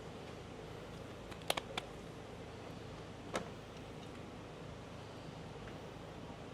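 A few light clicks over a steady low background hum: three in quick succession about one and a half seconds in, and one more a little past the middle.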